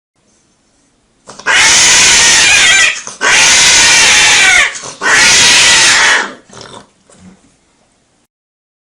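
Cat screaming in pain: three long, loud yowls with wavering pitch, each a second and a half or so, then a few short fainter cries.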